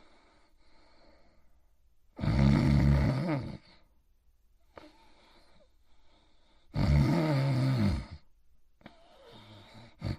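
Cartoon character snoring in his sleep: two loud snores about four and a half seconds apart, each lasting over a second, with quieter breaths out between them.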